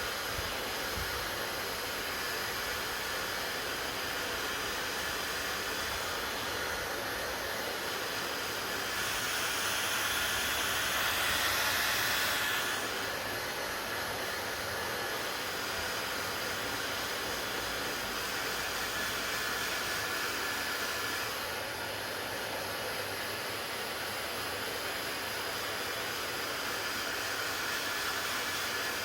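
Hair dryer running with a steady rushing hiss of air, growing louder and brighter for a few seconds near the middle.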